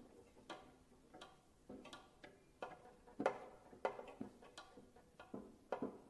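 Sparse contemporary cello music: short plucked notes at irregular intervals, about two a second, each sharply struck and quickly dying away.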